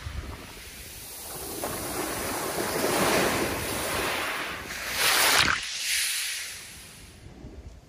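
Small waves surging up a shingle beach and washing back, swelling about two to three seconds in and again, loudest, about five seconds in, then dying down near the end.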